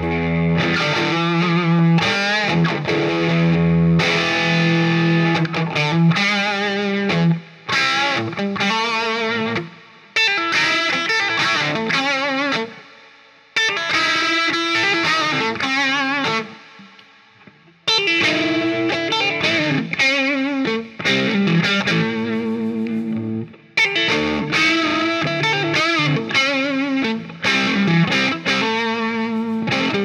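Stock 2017 Gibson Firebird T electric guitar played through an amplifier and a 2x12 SHAW Audio cabinet, mixing chords and single-note lines, with notes that waver in pitch. About halfway through, the playing twice pauses and lets the notes die away before starting again.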